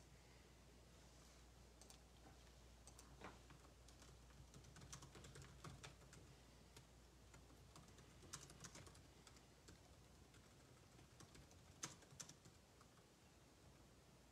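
Faint typing on a computer keyboard: scattered soft clicks in short runs, over a low steady hum.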